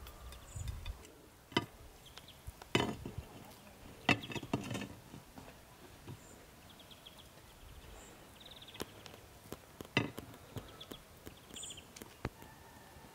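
Large kitchen knife cutting a roast chicken on a ceramic plate, giving a few sharp knocks and clinks against the plate. Short, faint, high chirps recur in the background.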